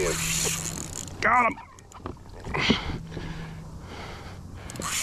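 Water splashing and churning at the surface as a big barracuda strikes a surgical-tube lure, followed about a second in by a short, excited wordless shout. Another brief loud burst comes near the three-second mark, and a few sharp clicks come near the end.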